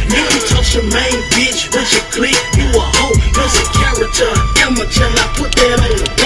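Hip-hop music with rapping over a beat of deep bass notes that slide down in pitch.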